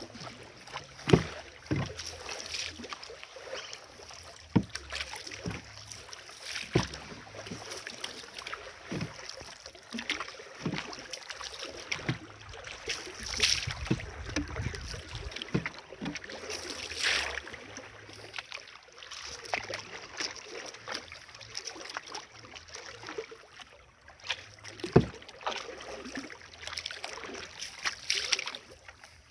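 Paddle strokes in a wooden canoe: the paddle splashing and swishing through river water, with knocks against the wooden hull every second or two over lapping water.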